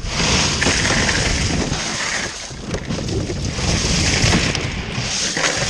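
Steady wind rushing over the microphone on an open boat on the water, with an uneven low buffeting underneath.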